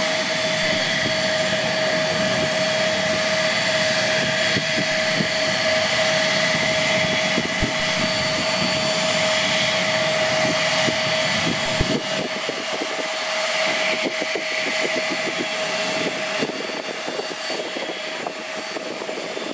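Avro RJ100's four Lycoming LF507 turbofan engines running at low taxi power as the airliner rolls past: a steady whine over a broad rushing noise, easing a little in the second half as it turns away.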